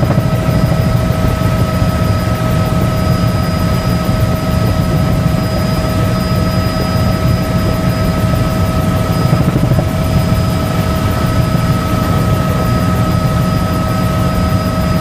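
Helicopter in flight, heard from on board: a steady rotor and engine drone with a constant high-pitched whine over it.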